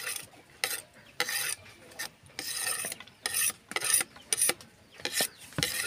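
A quick, irregular series of short rasping scrapes as chopped ginger is scraped into a bowl of raw fish.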